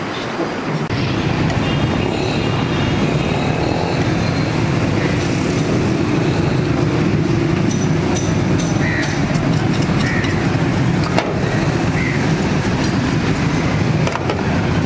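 Steady street noise: a loud, even hum of traffic, with voices in the background and a few clicks.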